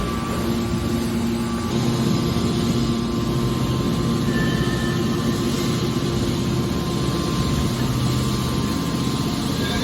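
Scrap car baler's hydraulic power unit running with a steady drone and a low hum.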